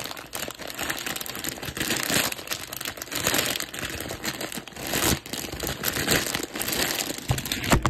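Hands kneading a clear plastic mushroom grain spawn bag: the plastic crinkles and the grain kernels shift and grind as clumps of mycelium-bound grain are broken up. A heavy thump comes near the end.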